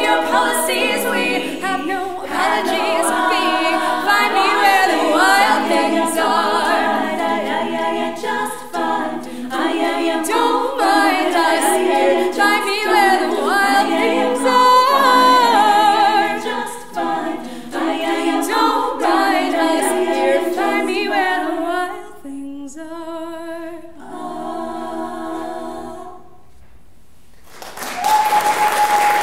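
Women's a cappella group singing, a solo voice over close vocal harmonies. The song winds down into softer held chords, stops briefly, and applause breaks out near the end with one steady high tone over it.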